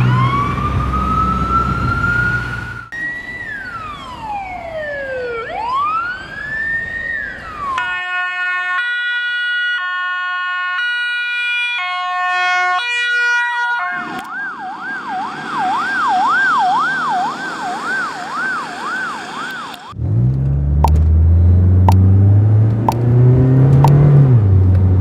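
Ambulance siren sound effects in a series of patterns: a rising wail, a long swoop down and back up, an alternating two-tone hi-lo, then a fast warble about twice a second. About 20 s in the siren stops and a vehicle engine runs, its pitch rising and falling.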